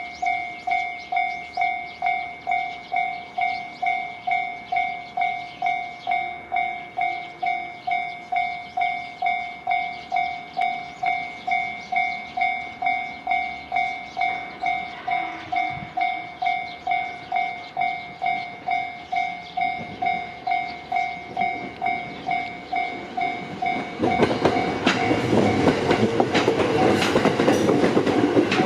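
Japanese level-crossing warning bell ringing in an even, steady rhythm. About 24 seconds in, a train reaches the crossing and the clatter of its wheels over the rails becomes the loudest sound.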